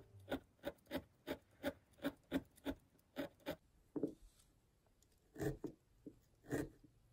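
A hand-held felting needle jabbing repeatedly through wool roving into a felt sheet, short sharp stabs at about three a second. The jabbing pauses for about a second and a half midway, then resumes with a couple more stabs.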